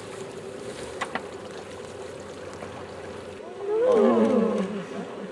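A walrus calling: one loud call near the end that falls in pitch, over a steady low hum.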